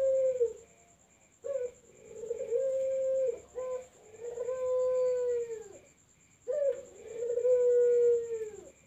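Barbary dove (puter) cooing: three phrases, each a short note followed by a long drawn-out coo that sags in pitch at its end.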